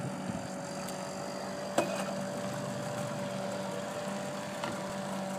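An engine running steadily at an even speed, a constant hum, with a single sharp knock about two seconds in.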